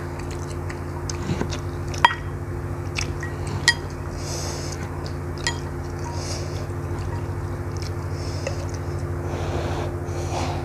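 Wooden chopsticks and a wooden spoon clicking against a ceramic bowl as soupy instant noodles and meatballs are stirred and lifted, with wet squishing of the noodles. A steady low hum runs underneath.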